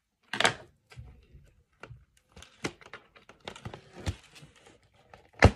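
Handling noise as a doll is worked free of its box packaging: a string of irregular clicks, taps and rustles, a louder rustle about half a second in, and a sharp knock near the end.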